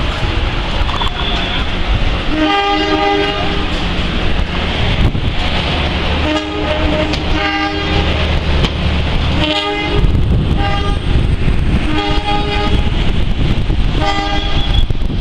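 CC203 diesel-electric locomotive's horn sounding a string of about eight short blasts, roughly one a second in the second half, over the low rumble of the moving train. It is the semboyan 35 horn signal, given repeatedly as a warning because the train is running on the wrong track.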